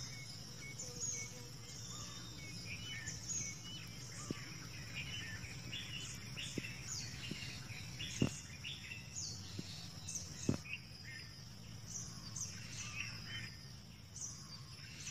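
Many birds chirping and calling, short repeated notes, over a steady high-pitched hum and a low steady rumble. Two sharp clicks come through a little past the middle.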